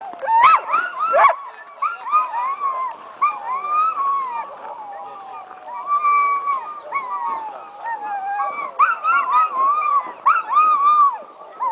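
A chorus of sled dogs howling and yipping together, many rising and falling howls overlapping, with two loud sharp yelps in the first second or so. It is the excited howling of sled dogs keyed up before a race.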